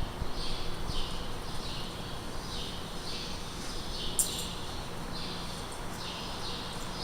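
A bird chirping over and over, a short falling note roughly one or two times a second, over a low steady hum.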